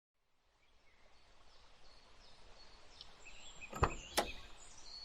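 Outdoor ambience fading in, with faint bird chirps, then two sharp clicks in quick succession.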